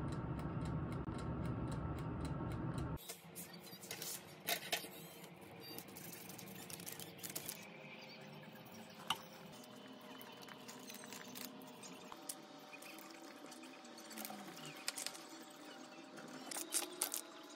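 Air fryer running with a steady fan hum, which stops abruptly about three seconds in. After that come quieter scattered clinks and light scrapes of a metal fork and knife cutting a baked cheese-topped pizza on a paper liner.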